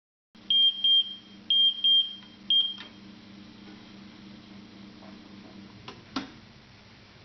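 Oven timer beeping five times in quick succession, in two pairs and then a single, signalling that the baking time is up. A steady low hum follows, with a couple of sharp clicks near the end.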